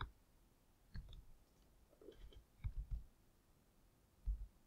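A few scattered clicks of a computer mouse and keyboard, with soft low thuds, while a formula is copied and pasted into spreadsheet cells.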